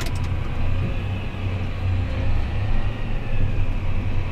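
Farm tractor engine running steadily under way, a deep even hum heard from inside the cab.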